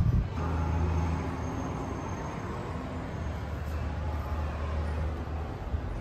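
A steady low mechanical hum over a faint wash of city traffic noise.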